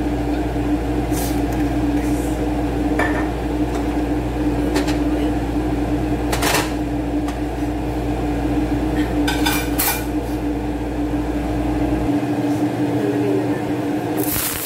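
A steady mechanical hum with one constant pitched tone, its low rumble cutting off about twelve seconds in, under a handful of short clinks and clatters of kitchen dishes and utensils.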